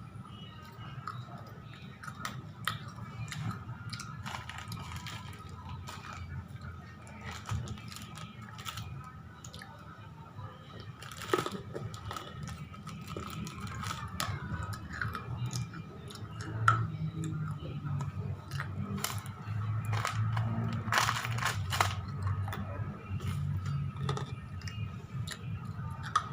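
Crunchy spicy chips (keripik pedas) being bitten and chewed close to the microphone: irregular sharp crunches over wet chewing that gets louder in the second half.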